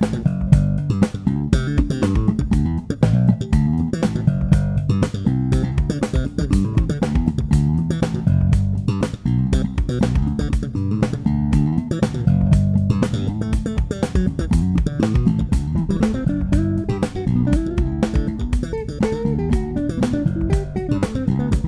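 Six-string electric bass with EMG 45J pickups played fingerstyle: a busy, unbroken run of quick plucked notes, the low notes carrying most of the sound.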